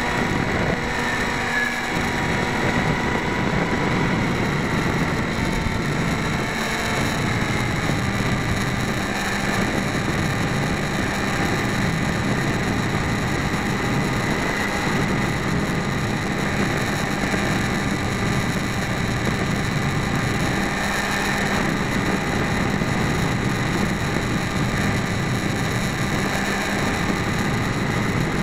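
Electric motor and propeller of a Mini Skywalker model plane running steadily in flight, a constant whine over a rush of air, heard from on board.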